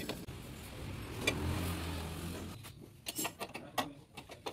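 A vehicle engine running steadily, which dies away after about two and a half seconds. Then a socket ratchet clicks in short, irregular runs as it turns an engine mount bolt.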